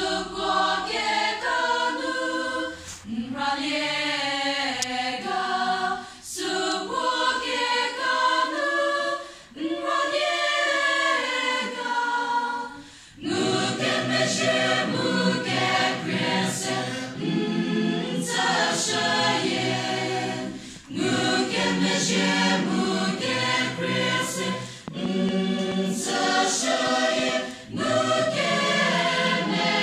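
Mixed church choir singing in parts. The first phrases are carried by higher voices, and about halfway through lower voices join and the sound grows fuller, with brief breaks between phrases.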